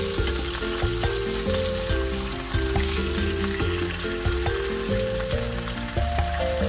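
Chicken pieces sizzling as they fry in oil, a steady hiss, under background music with a melody.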